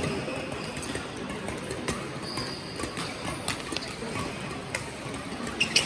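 Badminton rally: racket strings striking the shuttlecock in several sharp clicks about one to one and a half seconds apart, the loudest near the end, over the steady background noise of a sports hall.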